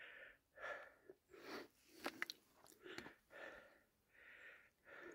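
Near silence with faint breath and mouth sounds from the person holding the camera: about eight soft, regular puffs, with a couple of small clicks near the middle.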